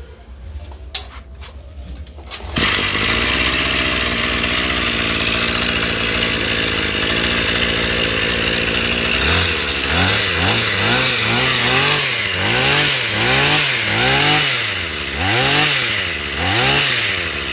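Tanaka CG24 two-stroke brush cutter being test-run: after a few clicks and knocks, the engine catches about two and a half seconds in and runs steadily. From about halfway on the throttle is blipped again and again, the engine revving up and dropping back roughly once a second.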